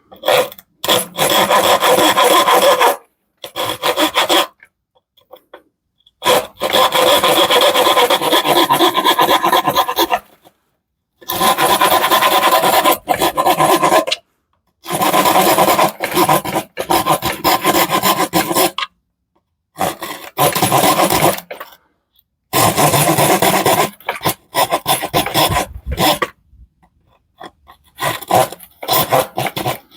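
Plywood being sawn by hand with a wood-cutting sabre-saw blade in a Parkside PHSS 3 B1 handsaw: runs of rapid back-and-forth rasping strokes, each a few seconds long, broken by short pauses.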